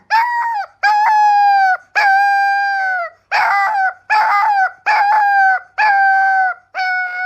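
A domestic animal crying over and over: about eight long, loud calls in a row, each held at a steady pitch for around a second and falling away at the end.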